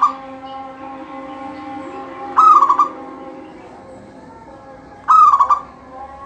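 Zebra dove (perkutut) singing: loud, short cooing song phrases about every two and a half seconds, with the end of one phrase at the start and two full phrases after it.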